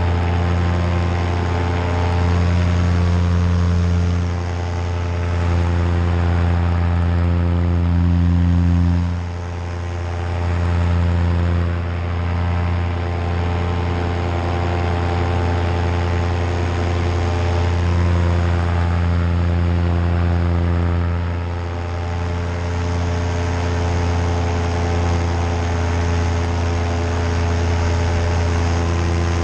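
Nitro 200 two-stroke paramotor engine and propeller running steadily in flight, with the throttle eased back briefly about nine seconds in and again near the end of the second third.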